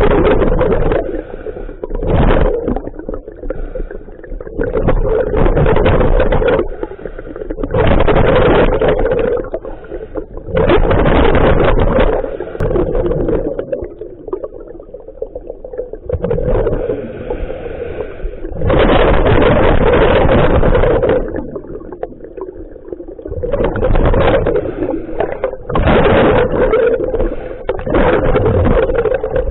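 Scuba diver breathing through a regulator underwater: a loud bubbling rush of exhaled air every two to four seconds, each lasting one to two seconds, with quieter inhalations between.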